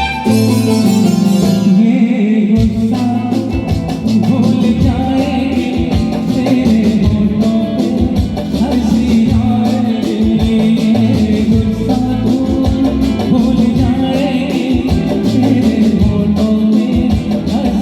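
Music with plucked guitar and a steady beat, playing continuously.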